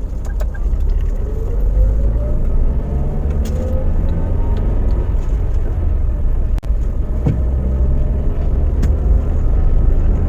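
Car engine and road rumble heard from inside the cabin as the car speeds up, the engine note rising over the first few seconds. There is a brief dip about six and a half seconds in, then the car drives on steadily.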